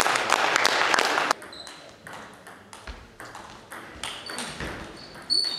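A loud burst of clapping and voices that cuts off sharply about a second in, then the sharp ticks of a table tennis ball striking the table and the bats.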